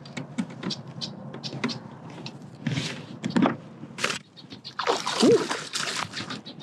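A hooked fish splashing at the surface beside a kayak as it is played to the net: several splashes, the biggest and longest about five seconds in. Small sharp ticks come in between.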